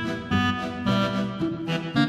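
Instrumental background music with plucked string notes changing about twice a second over a low bass line.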